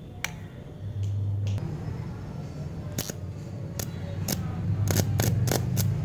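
Homemade AC arc welder made from a rewound microwave oven transformer: a switch clicks on and the transformer starts a steady low hum. From about three seconds in, the welding rod strikes against the clamped bolts and the arc crackles and sputters in irregular snaps while the hum grows louder under load.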